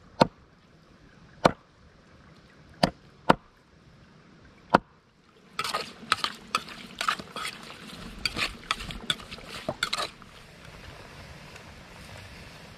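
A large knife chopping meat on a wooden board: five single sharp chops about a second apart. From about five and a half seconds a spoon scrapes and clatters against a metal pot as the ingredients are stirred, for about four seconds. The last few seconds hold a steady soft hiss, fitting a pot boiling over a wood fire.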